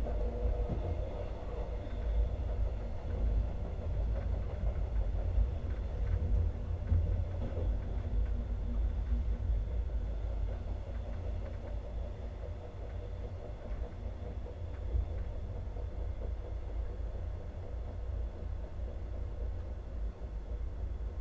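Running noise of a train heard from inside a passenger coach: a steady low rumble of wheels on track, with a faint tone in the middle that fades out, easing slowly quieter.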